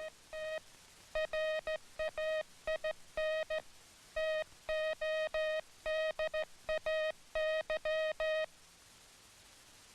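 Hand-sent Morse code: a single steady beep tone keyed on and off in short dits and long dahs, with longer gaps between characters and words. It runs for about eight and a half seconds, then stops.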